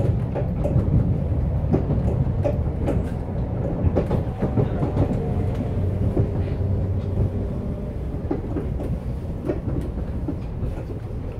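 MBTA Red Line subway car running at speed, heard from inside the car: a steady low rumble of wheels and running gear, with irregular clicks of the wheels over the rails and a faint whine.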